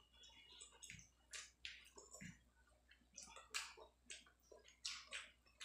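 Faint close-miked eating sounds of rice and fried fish: irregular soft wet mouth smacks and small clicks, about two or three a second, with fingers squishing rice on the plate.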